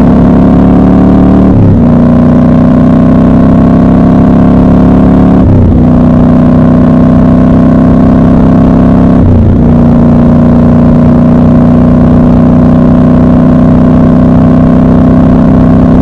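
Triumph Scrambler 1200 XC's 1200 cc parallel-twin engine pulling hard under acceleration, its pitch climbing between three quick upshifts in the first ten seconds, then running at a steady cruise.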